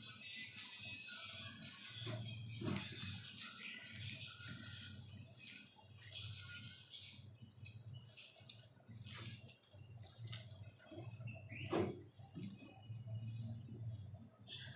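Minced mutton being mixed and worked together with wet spice pastes and gram flour, making irregular wet squelching and squishing sounds. A low steady hum runs underneath.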